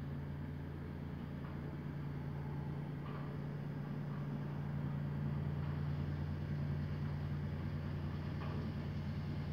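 Heavy diesel engine running steadily as the dump truck raises its tipper body, heard through window glass; it grows a little louder about halfway through.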